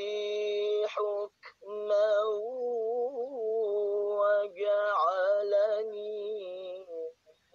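A single voice singing or chanting in long held notes, with ornamented turns in the melody around the middle, pausing briefly about a second in and stopping just before the end.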